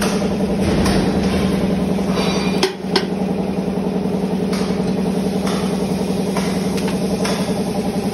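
A machine running steadily with an even, low drone, broken by a brief dip and a couple of sharp knocks about three seconds in.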